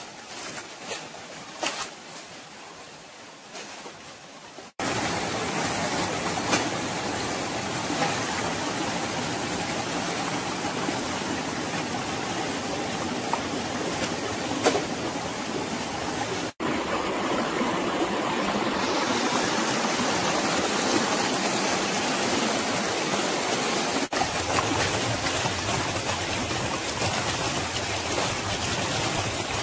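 Faint rustling with a few light clicks, then from about five seconds in a steady rush of shallow stream water flowing over rocks.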